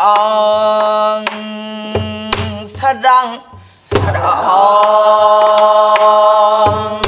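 A woman singing a Korean folk song in the traditional style, holding two long notes on "sarang", while beating a buk barrel drum with a stick. The drum gives a few sharp strokes, most of them in the pause between the two notes.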